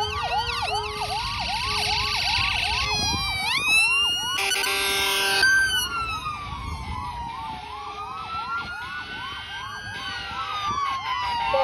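Several emergency-vehicle sirens sounding together as the vehicles drive past: a fast repeating yelp, a slow rising and falling wail, and short bursts of rapid warble and chirps layered over them.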